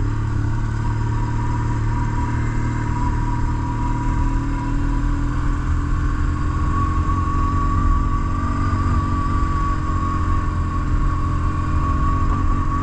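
BMW R1150GS Adventure's flat-twin boxer engine running steadily under way: a low rumble with a thin whine that rises slightly in pitch about halfway through.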